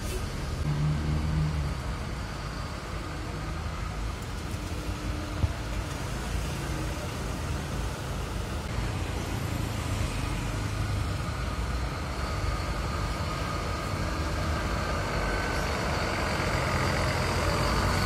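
Diesel engines of large intercity coaches running as the buses drive slowly past, a steady rumble that grows louder toward the end. There is one sharp click about five and a half seconds in.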